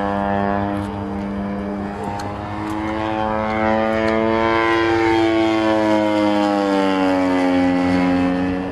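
Giant-scale radio-control Yak 55SP aerobatic plane with a BME 110 cc gas engine flying overhead, the engine and propeller note rising in pitch about two to three seconds in, holding high, then easing down near the end.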